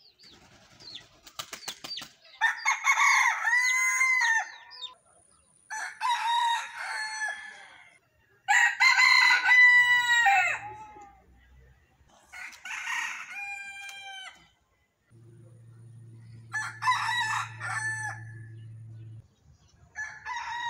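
Roosters crowing, one long cock-a-doodle-doo after another, about six crows a few seconds apart. A few short clicks sound before the first crow, and a faint low hum runs under the fifth.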